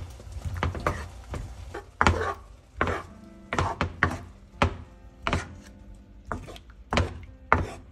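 Wooden spatula knocking and scraping against a nonstick pan while turning chicken pieces in sauce: irregular sharp knocks, roughly two a second.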